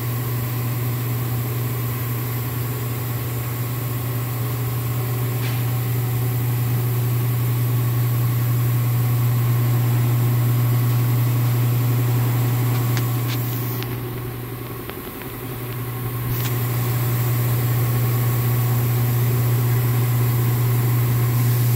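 Steady low drone of spray-booth ventilation fans running, with a hiss of moving air; the hum dips briefly about two-thirds of the way through.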